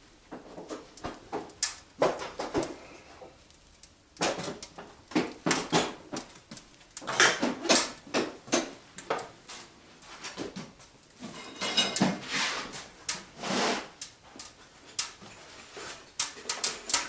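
Wood fire crackling inside a cast-iron stove on its first firing: irregular sharp clicks and snaps, bunched into denser flurries about a second long.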